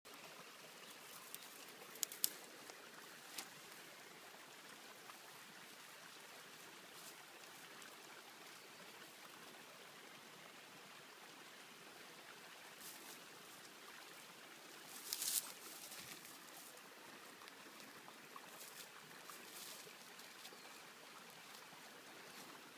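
Faint, steady rushing outdoor hiss. A few short rustles and crackles of dry vegetation break through it, the loudest cluster about fifteen seconds in.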